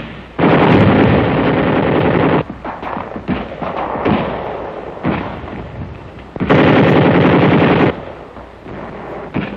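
Two long bursts of rapid automatic gunfire, the first about two seconds long starting just after the beginning and the second about a second and a half long near the end, with scattered single shots between them.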